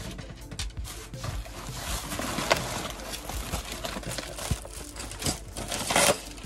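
Plastic and foil-faced packaging wrap crinkling and rustling as it is pulled off and handled, loudest about six seconds in.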